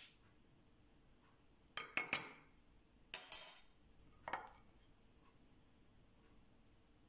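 Metal spoon clinking against a glass dish: a quick cluster of bright, ringing clinks about two seconds in and another about three seconds in, then a single duller knock a second later.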